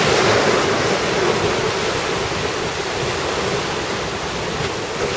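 Heavy surf breaking and churning, a steady rushing wash of large waves stirred up by a typhoon's outer circulation.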